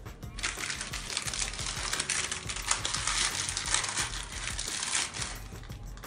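Baking paper crinkling and rustling as a warm sponge cake sheet is rolled up and pressed inside it on a metal oven tray: a dense crackle with many small clicks, starting about half a second in and stopping about a second before the end.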